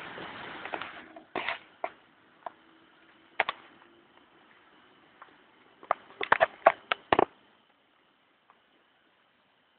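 A cricket trilling faintly and steadily on one high note, broken by loud, irregular sharp clicks that come singly early on and in a quick cluster of several around six to seven seconds in.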